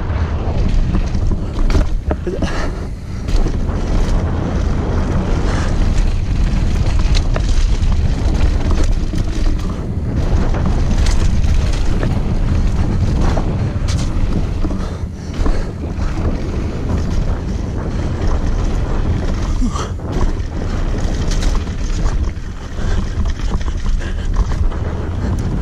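Wind rushing over the microphone of a mountain biker's action camera at speed, with the tyres rolling over dirt and loose rock and frequent short knocks and rattles from the bike over bumps.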